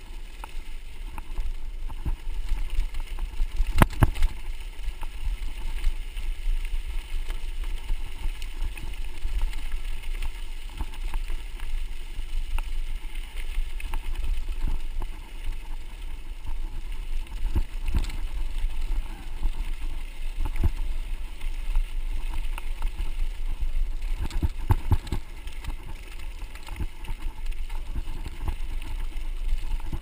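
Mountain bike rolling over a gravel dirt road, heard from a handlebar-mounted camera: a steady low rumble of tyres and wind on the microphone, with a few sharp knocks and rattles from bumps, the loudest about four seconds in.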